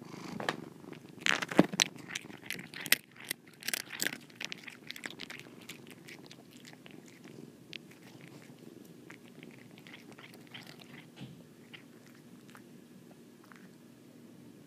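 A tuxedo cat crunching and chewing a tortilla chip right at the microphone: a quick run of sharp crunches over the first few seconds, then fainter, scattered chewing clicks.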